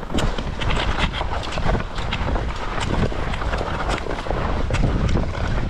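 Wind buffeting the microphone, with the irregular crunch and swish of gliding snowshoes (skishoes) shuffling along a packed snow trail.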